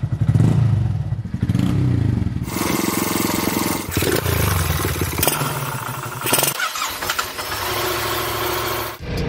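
Motorcycle engines running and revving in a string of short clips cut together, the sound changing abruptly every few seconds.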